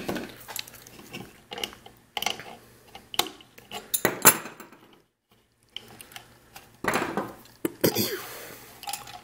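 Metal hand tools clinking and clattering on a wooden bench as steel slip-joint pliers are picked up and clamped onto the antenna connector of a plastic camera, in a string of sharp clicks and knocks with a short scrape near the end. The sound stops for a moment about halfway through.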